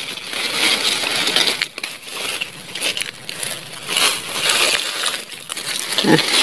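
Dry fallen leaves and twigs rustling and crackling as a hand pushes through the leaf litter, in several irregular bouts.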